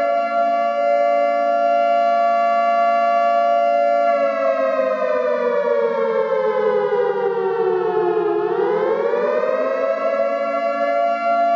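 Air-raid style siren wailing on two notes at once: it holds a steady pitch, slides slowly down for about four seconds, then swings back up to the steady pitch.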